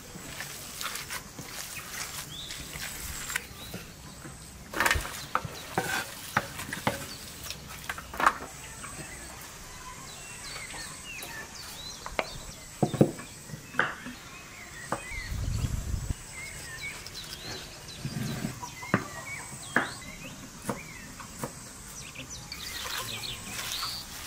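Hands squeezing and kneading wet minced meat in an enamel bowl, with irregular squelches, soft clicks and a few dull knocks against the bowl.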